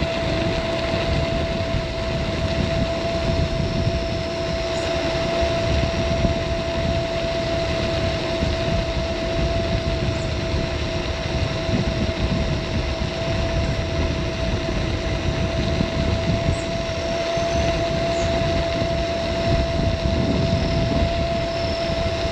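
Caroma P1 electric scooter riding downhill at speed: wind buffeting the microphone and tyre rumble, with a steady high whine that does not change pitch.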